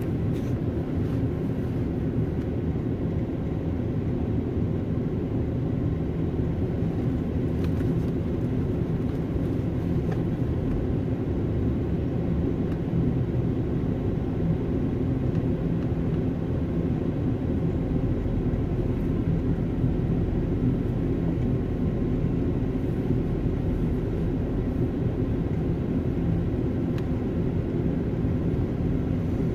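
Steady low rumble of a car's engine and tyres heard from inside the cabin while driving in slow, heavy freeway traffic.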